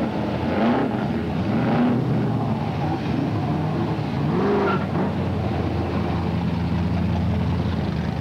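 Engines of modified cars in a slow cruise, rumbling steadily, with short throttle blips that rise and fall in pitch about a second in, near two seconds and about halfway through.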